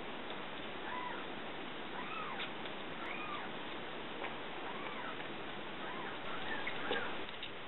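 Very young kitten mewing repeatedly: thin, high cries that rise and fall in pitch, roughly one a second.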